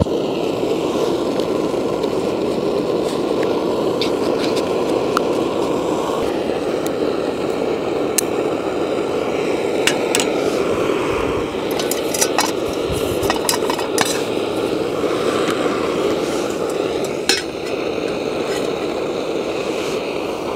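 PT-1 petrol camping stove burning with a steady rushing noise that starts suddenly as the burner is lit. The stove is still warming its own tank, so the burn is not yet at full strength. Scattered clinks of a metal spoon and pot over it.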